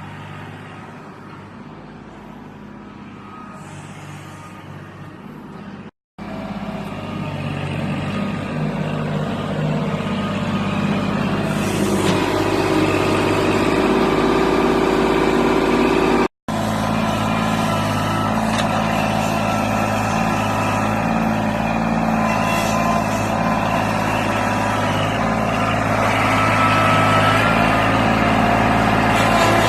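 An engine running steadily at a constant speed, louder after a brief dropout about six seconds in, with a second brief dropout about sixteen seconds in.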